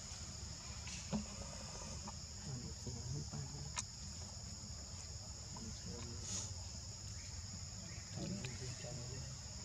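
Steady high-pitched drone of a forest insect chorus, with a sharp click about a second in and another near four seconds.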